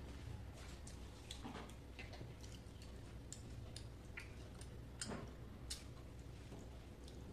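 Eating sounds: soft, irregular clicks and smacks as a person chews steamed hilsa fish and picks at it by hand on a plate, with a couple of slightly louder clicks about five seconds in.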